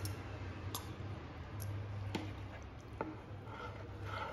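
Blanched spinach being lifted by hand out of hot water in an aluminium pot: a few faint scattered clicks and soft wet handling sounds over a low steady hum.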